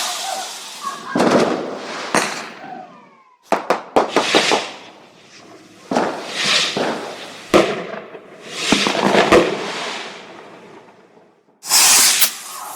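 Fireworks going off: a string of sharp bangs, each followed by a hissing burst that fades over a second or two, with a quick cluster of cracks a few seconds in.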